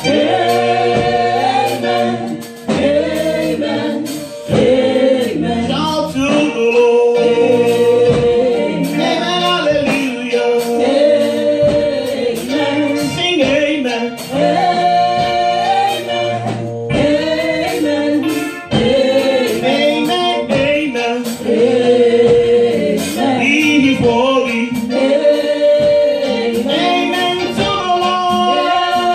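Four women singing a gospel worship song together into handheld microphones, amplified.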